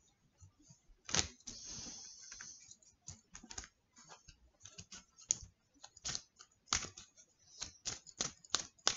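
Tarot and oracle cards being handled and shuffled: irregular clicks and taps of cards, with a short sliding rustle of cards about a second in.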